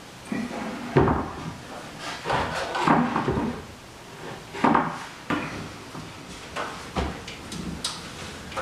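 Irregular wooden knocks and clatters, about seven sharp ones spread unevenly, from a barnwood trim board being handled and set against the wall header.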